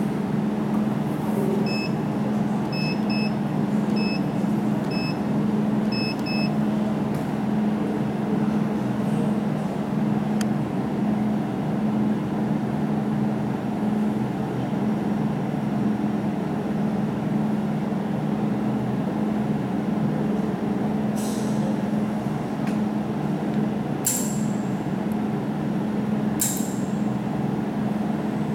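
Jewelry laser welding machine running with a steady electrical hum. A run of short electronic beeps comes a couple of seconds in. Three sharp snaps come in the last third, typical of the pulsed laser firing on the ring.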